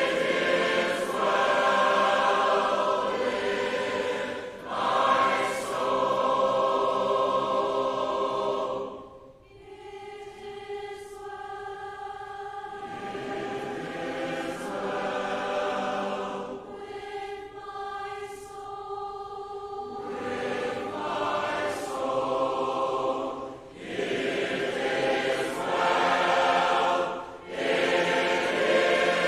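Church congregation singing a closing hymn a cappella, many unaccompanied voices together. The singing drops briefly between phrases about nine and twenty-four seconds in, and is softer in between.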